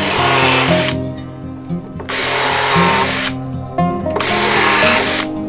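Power drill boring holes into a wood block, in three bursts of about a second each with short pauses between, over background music.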